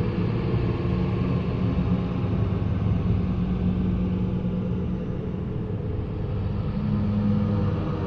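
Eerie ghost-ambience drone: a steady, deep rumbling bed with long-held low tones and no distinct events.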